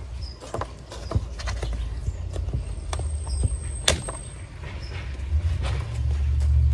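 Thin metal wire hanger of a plastic hanging pot clicking and ticking against the pot as it is handled, with one sharper click about four seconds in. Under it runs a low rumble that grows louder toward the end.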